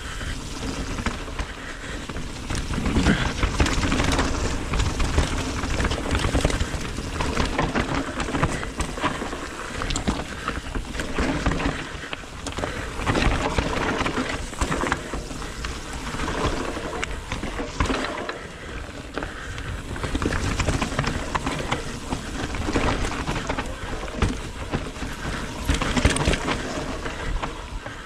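Mountain bike ridden fast down a dirt forest trail: tyres rushing and crunching over loose soil and stones, with frequent rattles and knocks from the bike over the bumps, the noise swelling and easing every few seconds.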